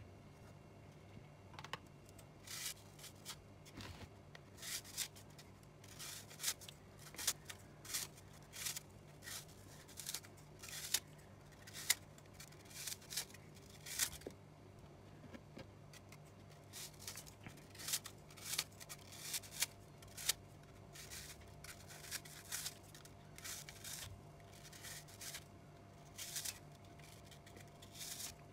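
Kitchen scissors snipping through apple, cutting it into chunks: a long run of short, crisp snips at an uneven pace, with small pauses between cuts.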